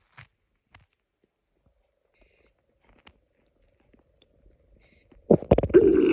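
Human stomach growling: faint scattered gurgles and clicks, then a loud pitched rumbling growl begins about five seconds in.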